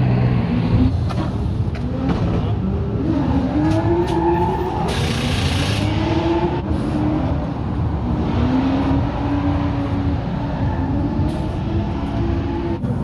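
Drift car's engine revving up and down, with a burst of tyre squeal about five seconds in.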